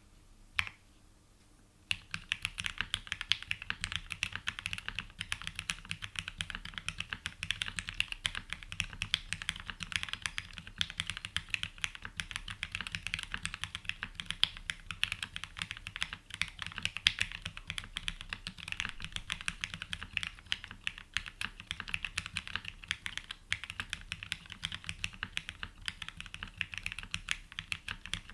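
Fast, continuous typing on a Haven 65 custom mechanical keyboard: lubed and filmed Gateron Oil King linear switches in an aluminum plate, with GMK keycaps. Two single key clicks come first, and the steady typing starts about two seconds in.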